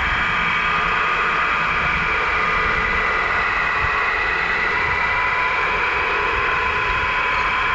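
Tamiya 1/14 scale RC semi trucks running: a steady whine made of several tones that drift slowly up and down in pitch over a rushing hiss.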